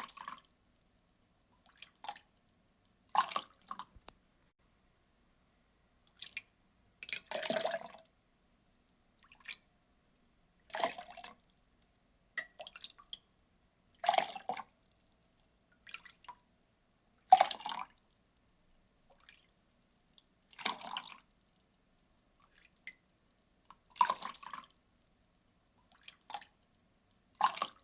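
Water poured in short splashes, each lasting under a second, repeating every second or two with quiet gaps between.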